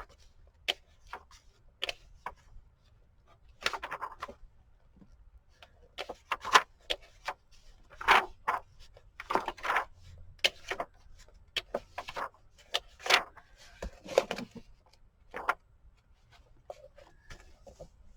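Paper rustling as the pages of a book are turned and handled: a string of short, irregular rustles and light taps, a few longer page-turn swishes among them.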